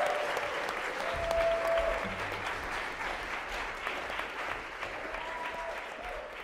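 Audience applauding at the end of a live song, with a few voices calling out. The clapping thins and fades toward the end.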